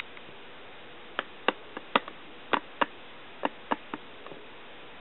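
About ten sharp, irregular clicks, some close together in pairs, between about one second and four seconds in, over a steady faint hiss.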